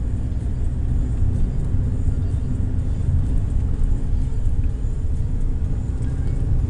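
Car driving at speed, heard from inside the cabin: a steady low rumble of engine and road noise.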